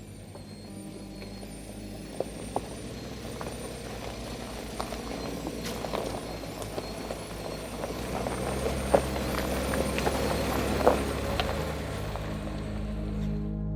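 INEOS Grenadier 4x4 driving on a rough off-road trail: a steady engine and drivetrain hum that slowly grows louder, with scattered knocks and clicks, the loudest about nine and eleven seconds in.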